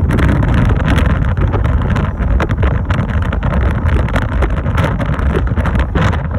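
Fireworks finale barrage: shells bursting in rapid, overlapping succession, a dense, continuous rumble of booms and crackle with no gaps.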